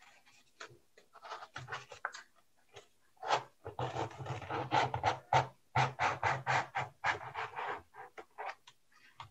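Edge of a strip of cardboard scraped repeatedly across paper, wiping off a layer of shaving cream: a run of short scraping strokes, loudest and closest together in the middle.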